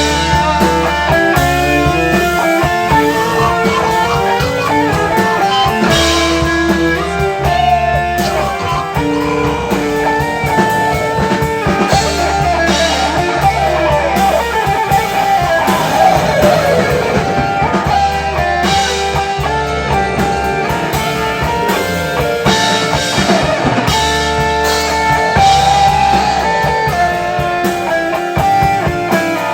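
Instrumental rock passage: electric guitar playing over bass and a drum kit, with a long falling glide in pitch around the middle.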